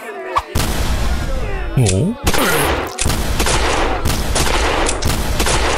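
Rapid gunfire sound effects, shot after shot over a dense crackle, with a short voiced cry about two seconds in.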